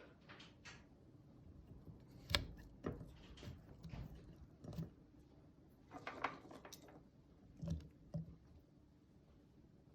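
Kitchen handling sounds while preparing turnip pickles: scattered light knocks and short clatters. A sharp knock comes about two and a half seconds in, and a small cluster of clinks and taps comes around six seconds.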